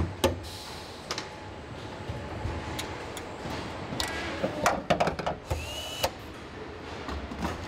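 Car assembly line at work: a steady machinery hum with scattered clicks and clanks of tools and parts, and a brief high power-tool whine a little past halfway.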